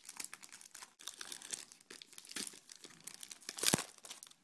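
Clear plastic protective wrap being peeled and crinkled off the back of a Kindle Fire HD tablet: irregular crackling, with one louder crackle a little under four seconds in.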